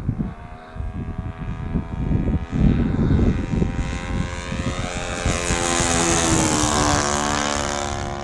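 Saito FA-62B four-stroke glow engine of a radio-controlled P-51B Mustang flying a pass overhead, its engine note climbing in pitch as it approaches and then dropping as it passes, about five seconds in. Gusty wind rumbles on the microphone throughout.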